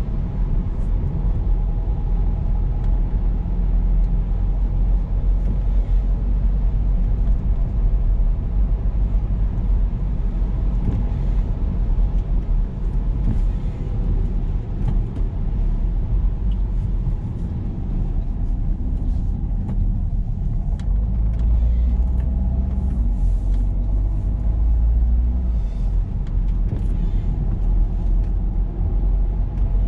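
A car driving along a road: a steady low rumble of engine and tyre noise, with a faint steady engine hum above it and scattered faint ticks.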